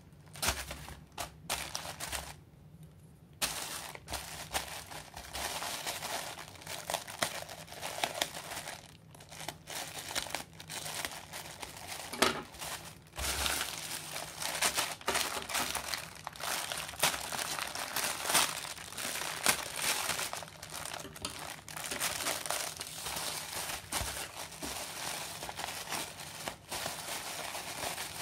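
Plastic poly mailer shipping bags crinkling as hands handle them and pull at one to open it: a dense run of irregular crackles, with a brief pause about two seconds in.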